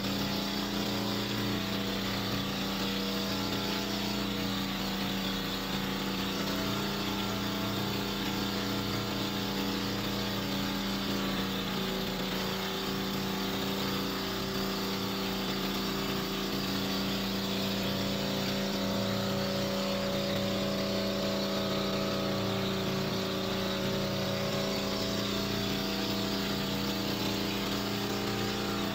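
Engine of a bangka outrigger boat running steadily under way, its pitch shifting slightly about halfway through.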